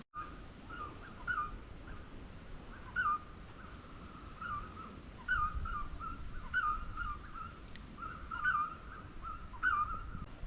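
A bird calling over and over in short, wavering notes.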